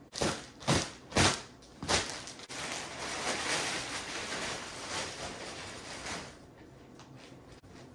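Four short, sharp sounds in quick succession, then plastic packaging wrap rustling and crinkling for a few seconds as couch cushions are unwrapped, fading out near the end.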